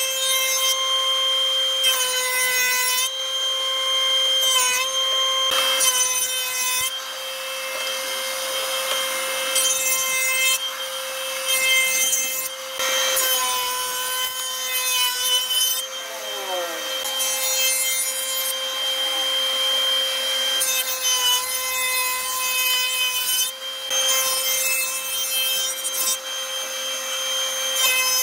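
Spindle moulder with a power feeder running with a steady whine, its cutter shaping the edge of a wooden door panel. Harsh bursts of cutting noise come and go every couple of seconds as the wood passes the cutter.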